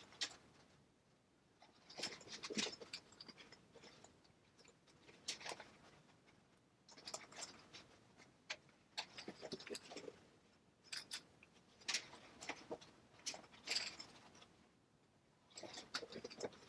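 Faint rustling and scratching of heavy waxed canvas being handled and hand-stitched with a Speedy Stitcher sewing awl, the thread drawn through the cloth. It comes in short bouts of a second or two with small clicks, separated by brief pauses.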